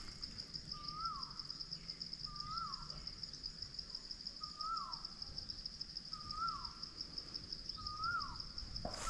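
A bird calling over and over, a short note that rises and then drops sharply, about once every two seconds, over the steady, finely pulsing high buzz of an insect.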